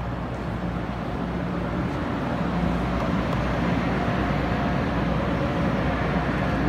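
Electric multiple-unit train moving through the station with a steady motor hum and rolling noise, growing louder.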